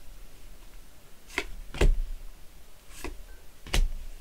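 Baseball trading cards being handled: four short, sharp snaps, the two at about 1.8 and 3.8 seconds the loudest.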